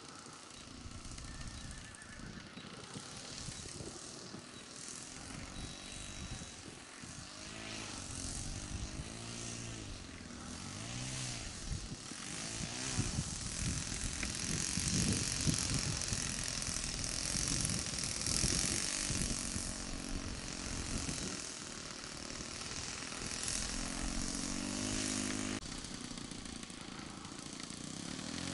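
Saito four-stroke glow engine of a radio-controlled model plane running at low throttle as it taxis on grass, its pitch rising and falling with throttle changes. It grows louder around the middle as the plane comes close.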